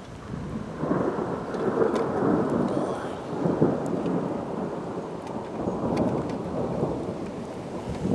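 Thunder rumbling, swelling about a second in and rolling on for several seconds with an uneven, rising-and-falling roll.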